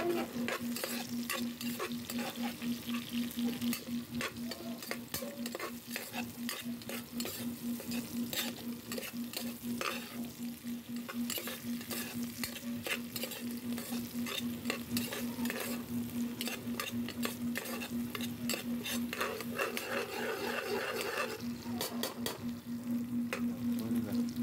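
Chopped onion, garlic and chili sizzling in oil in a metal pot as a metal spatula stirs and scrapes them, with frequent clicks of the spatula against the pot: the aromatics being sautéed for chicken adobo. A steady low hum runs underneath.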